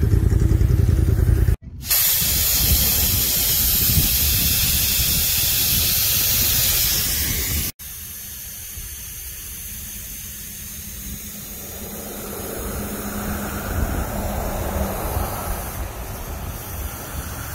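Air hissing steadily out of a large off-road tyre's valve as the tyre is aired down (deflated for off-road driving). It is loud for about six seconds, stops abruptly, then a quieter hiss follows. A low rumble fills the first second and a half.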